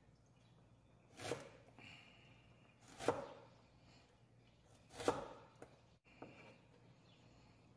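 Knife chopping on a cutting board: three single chops about two seconds apart.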